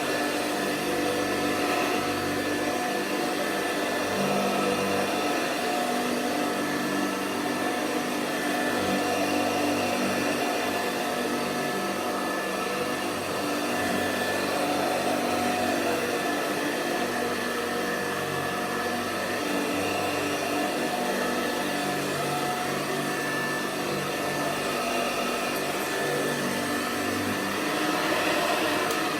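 Hoover Convertible Model 35 upright vacuum cleaner running steadily, its motor giving an even whine made of several constant tones.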